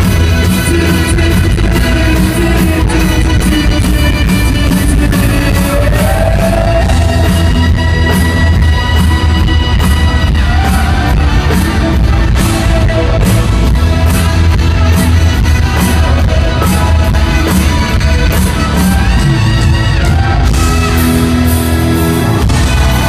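Rock band playing with drums, guitar and a lead singer.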